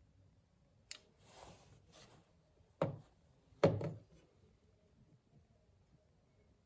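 Workbench handling sounds: a sharp click about a second in, a short soft hiss, then two hard knocks a little under a second apart, the second the loudest.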